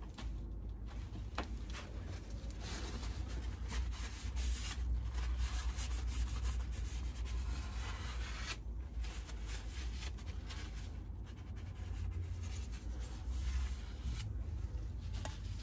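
Paper tissue wiped back and forth over the metal wheel hub and stub axle of a Daimler Ferret, around a freshly fitted SKF Speedi Sleeve: a continuous scratchy rubbing, broken briefly about nine seconds in.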